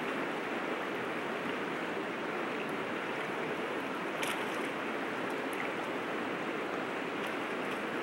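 Steady rush of a rocky river's current flowing, with a few faint ticks and one brief sharp click about four seconds in.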